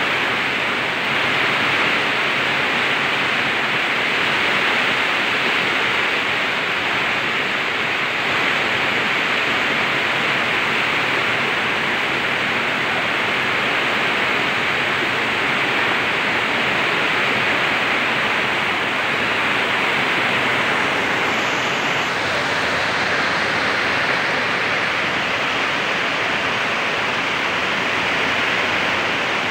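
Muddy floodwater rushing and cascading down a rocky embankment in heavy rain: a loud, steady hiss of water.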